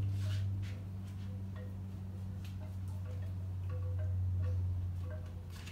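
Wind chimes tinkling in short, irregular notes over a steady low hum. A few brief rustles come from a towel being rubbed over a wet dog's coat.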